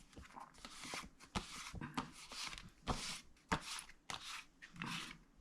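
A hand rubbing a sheet of freshly water-spritzed card, giving a run of irregular rustles and scrapes with a few light taps of paper being handled.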